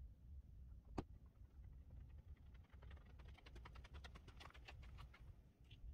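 Footsteps of a person running over hard desert dirt and gravel toward the microphone, faint at first and growing louder, over a low wind rumble. A single sharp click sounds about a second in.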